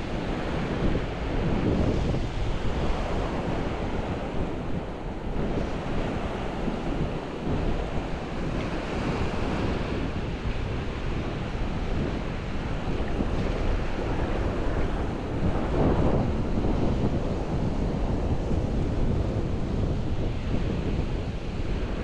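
Gulf of Mexico waves breaking and washing up the sand in steady surges, with a louder wash about two-thirds of the way through. Wind buffets the microphone throughout, adding a low rumble.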